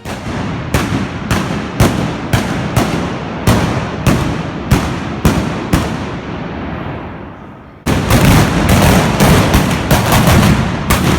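Trabucs, the blunderbusses of the trabucaires, firing blank gunpowder charges with echoing reports. Single loud blasts come about two a second, then after a brief lull about eight seconds in, many go off together in a dense, rapid volley.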